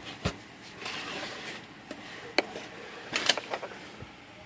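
A few sharp metallic clicks and knocks from a Royal Quiet De Luxe typewriter's margin mechanism being handled during repair: one just after the start, one past the middle, and a quick cluster near the end.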